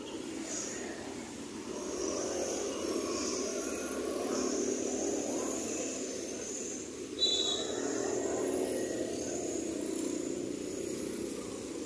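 Steady motor-scooter traffic and engine noise heard from a passenger seat on a motorbike in city traffic, with a brief high-pitched squeak about seven seconds in.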